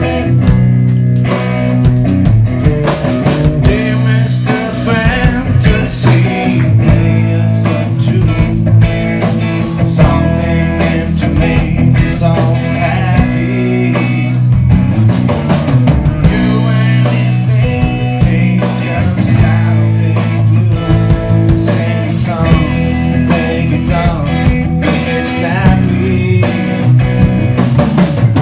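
Live rock band playing, with electric guitar, drums and a male lead singer.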